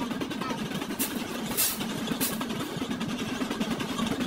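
Vintage lathe running steadily, its motor and gearing droning with a fast, fine rhythm as it turns a mandrel that coils steel wire into a spring. Three short hissing scrapes come between about one and two and a half seconds in.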